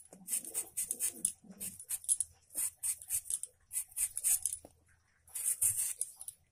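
A raw potato being peeled against a blade: quick, short scraping strokes, several a second, with a brief pause about five seconds in.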